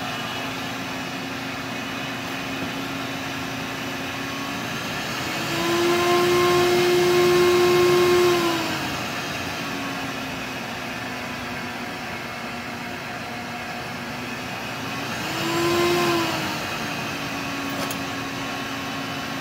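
Shop vac motor running at half speed through a variable-speed fan controller. Twice it speeds up, higher in pitch and louder, as the knob is turned toward full: for about three seconds starting around five seconds in, and briefly again near sixteen seconds. Each time it settles back to half speed.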